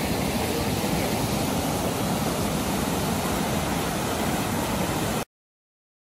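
Kaituna River rapids rushing: a steady, loud roar of white water that cuts off suddenly about five seconds in.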